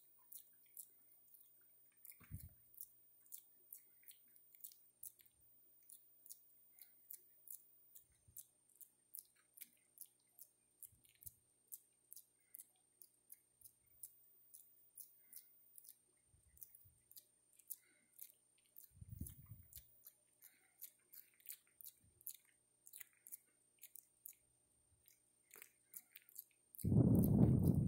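Macaques grooming each other: a steady run of small wet mouth clicks and smacks, about two a second, from lip-smacking and picking through fur. A louder low bump comes near the end.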